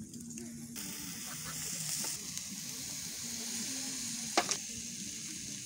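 Sauce poured from a plastic container over hotdogs and meat on a charcoal grill, hissing and sizzling as it runs onto the hot food and coals; the sizzle starts suddenly a little under a second in and holds. A single sharp pop about four seconds in is the loudest sound.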